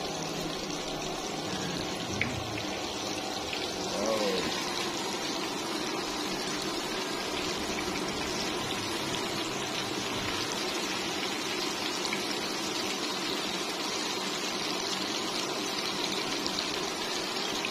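Flour-coated chicken pieces deep-frying in a wok of hot oil: a steady, even sizzle.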